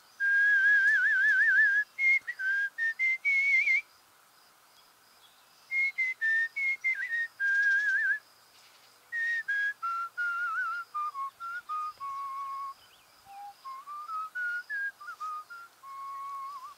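A man whistling an old tune through pursed lips: a single clear melody line with vibrato on the held notes, in phrases of two to four seconds with short breaths between, starting high and working gradually lower.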